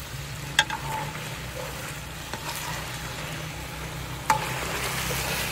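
Chicken sizzling in hot oil in a karahi while being stirred, with two sharp clinks against the pan, one about half a second in and one near the end.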